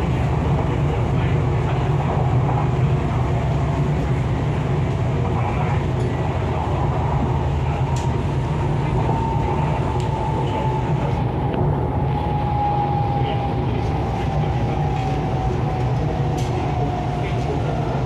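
MTR East Rail line R-Train electric multiple unit running along the line, a steady heavy rumble with a few light clicks. Over the second half a thin whine slowly falls in pitch.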